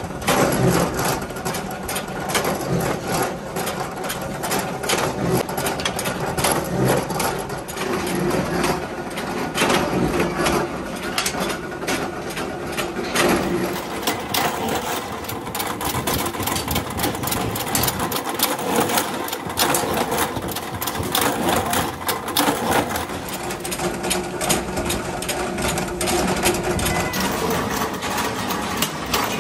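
Flywheel-driven mechanical forging press running with a continuous rapid clatter of metal knocks as red-hot nut blanks are pressed.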